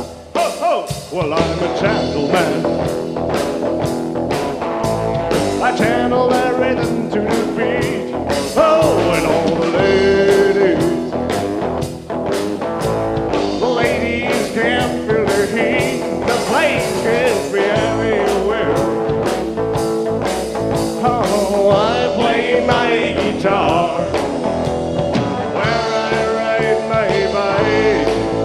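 Live rock song played by a band with a steady drum beat, in an instrumental stretch between sung verses.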